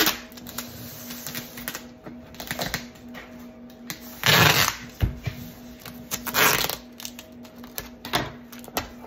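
Packing tape pulled off a handheld tape gun and pressed along a cardboard shipping box, in several rasping strips, the longest and loudest about four seconds in. A steady low hum runs underneath.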